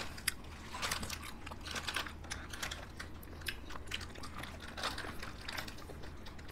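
Mouth sounds of several people eating soft ice cream: scattered short lip smacks, sucks and small clicks, several a second.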